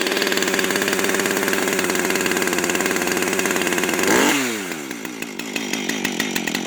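Two-stroke chainsaw running just after a cold start, with a soft purr. It holds a steady, fast idle, then about four seconds in it revs briefly and drops to a slower, lower idle with each firing stroke plainly heard.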